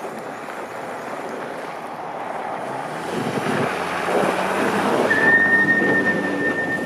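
Steady rushing outdoor noise, with a vehicle engine rising in the middle and fading near the end. A single steady high tone starts about five seconds in.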